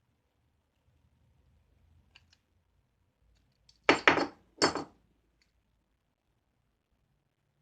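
Metal hand tools clinking: a couple of faint ticks, then three sharp clinks close together about four seconds in.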